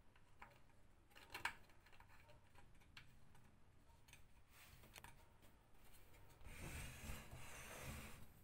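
Faint handling noise of a kerosene stove's filler cap being fitted onto its fuel tank: a few small clicks and taps, the sharpest about one and a half seconds in, then a rubbing, scraping sound for a couple of seconds near the end.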